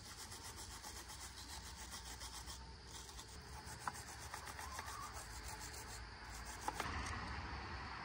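Small wire brush scrubbing the ignition coil contacts of an outboard motor clean: faint, rapid back-and-forth scratching strokes.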